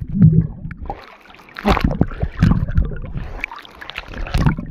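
Sea waves sloshing and splashing right at a phone held at the water's surface in a waterproof pouch, in uneven surges with a low rumble, loudest a little under two seconds in and again near the end.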